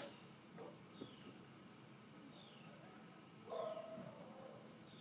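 Faint animal calls: one short, held whine-like call a little past halfway, with a bird repeating a short falling chirp about once a second.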